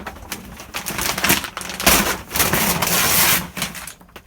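Water-damaged caravan wall panel being torn off: the thin plywood board cracks and splinters in a continuous crackling run, building about a second in and dying away near the end.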